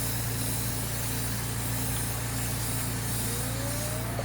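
Compressed-air dryer vent cleaning tool hissing steadily as it is run back through the dryer vent line, over a steady low machine hum. A faint rising whine starts near the end.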